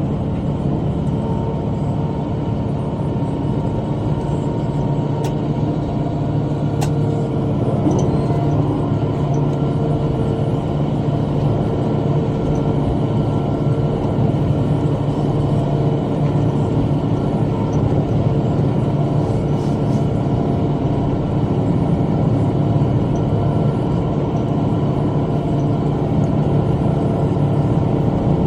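Tractor engine running at steady working speed while pulling a bush hog rotary cutter through brush, a continuous even drone. A couple of brief sharp ticks about five and seven seconds in.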